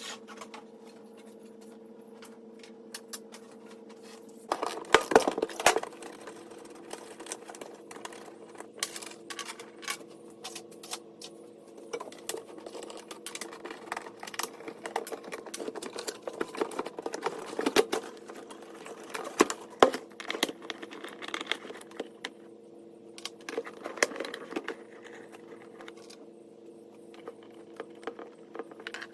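Metallic clinking, rattling and jangling from tools and wiring being handled, in quick irregular clicks that come thickest about five seconds in and again past the middle. A steady hum runs underneath.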